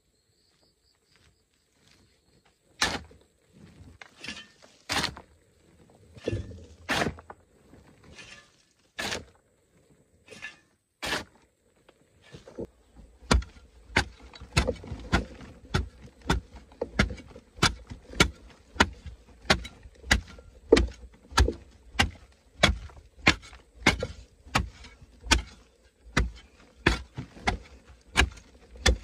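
A digging tool chopping into the packed red clay wall of a hand-dug tunnel. Single sharp strikes come every couple of seconds at first, then about halfway through settle into a steady rhythm of roughly one and a half strikes a second, each with a dull thud.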